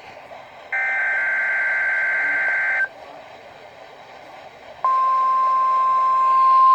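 NOAA Weather Radio emergency alert broadcast: a burst of the digital SAME header, a rapid two-tone warbling data sound lasting about two seconds, then about two seconds of faint hiss, then the steady single-pitch 1050 Hz weather radio warning alarm tone starting about five seconds in and getting louder near the end, sounding for the weekly test.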